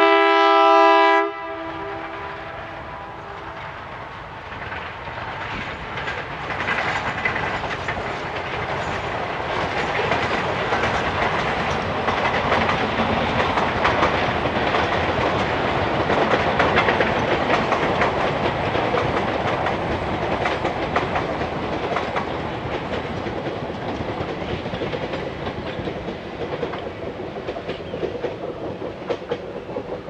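Horn of an ALCo WDG 3A diesel locomotive blaring, cut off about a second and a half in. Then the passenger train's wheels clatter over the rail joints, building to a peak midway and fading toward the end.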